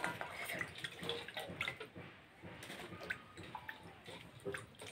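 Hands sloshing ber fruits around in water in a steel basin to wash them, with irregular splashes and small clicks.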